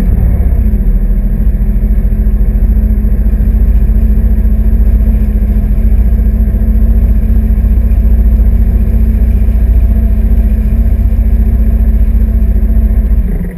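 Sea-Doo RXP-X personal watercraft's supercharged three-cylinder four-stroke engine running hard at a steady high speed under the load of towing inflatable tubes. The sound is very loud, heavy and low, and it starts and stops abruptly.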